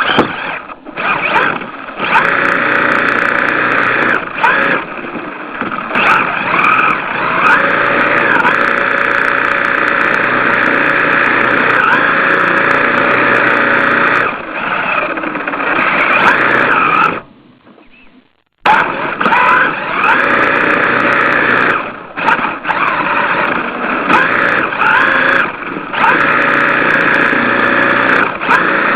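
RC car motor running and revving up and down repeatedly, with squealing as it drifts. It cuts out for about a second and a half a little past the middle, then resumes.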